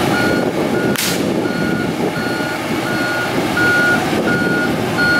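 Komatsu PC70 excavator's travel alarm beeping steadily, about eight short beeps spaced well under a second apart, as the machine tracks down off the truck, with its diesel engine running underneath. A short sharp hiss sounds about a second in.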